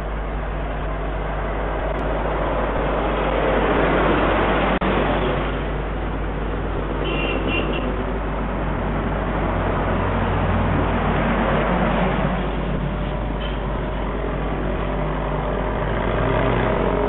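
Road traffic: cars, pickups and motorbikes passing along a town street, swelling louder as vehicles go by about a quarter of the way in, again about two-thirds through and near the end, over a steady low hum.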